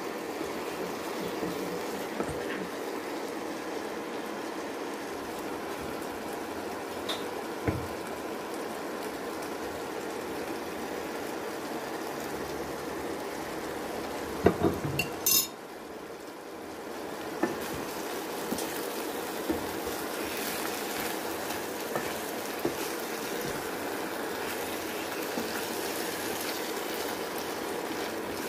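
Eggplant curry sizzling and simmering in a pan while a wooden spatula stirs it, with a few sharp knocks of the spatula against the pan, the loudest about halfway through.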